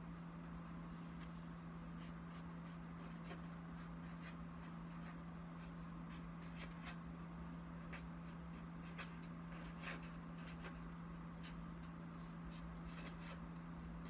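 Pen writing on paper: faint, irregular short scratches and taps, over a steady low hum.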